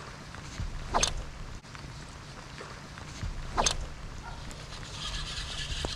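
Gusty hurricane wind on the microphone, a steady low rumble, with two short sharp swishes, about a second in and again about two and a half seconds later.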